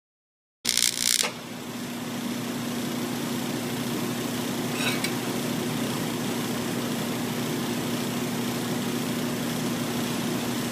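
Steady machine hum with one low steady tone under a haze of noise. It cuts in abruptly about half a second in with a short loud burst. A light clink of the clamped metal case being handled comes about halfway through.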